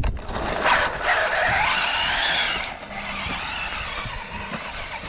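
Electric motor of an RC car whining up in pitch as it accelerates for about two seconds, then easing off, over a hiss of its wheels on ice.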